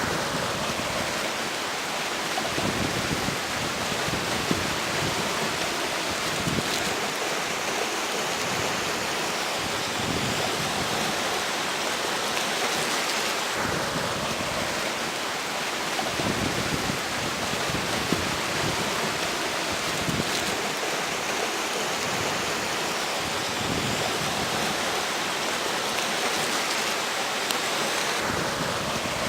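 River water flowing, an even rushing hiss, with strong wind gusting over it.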